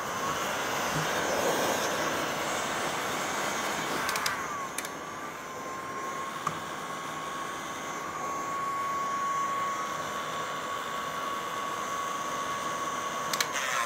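Electric hot-air blower running steadily, a rushing hiss with a faint whine, heating headlight projector holders to soften them so the projector can be pulled out without breaking them. It cuts off near the end.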